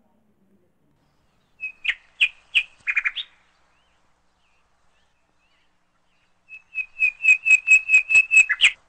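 A small bird calling in two bursts of quick, high repeated notes: a short run of about half a dozen notes, then after a pause a longer, faster run of about a dozen notes.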